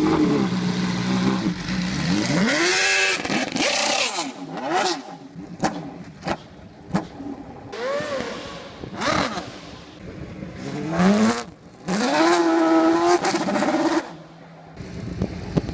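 Formula 1 car engine revving up and down repeatedly on a loose dirt surface, its note rising and falling in several sweeps, with sharp clicks scattered through it. The engine briefly drops away near the end.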